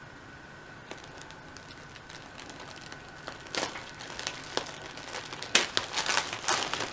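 Plastic packaging crinkling and rustling as it is handled, in irregular crackles that start about three and a half seconds in and get louder and busier near the end.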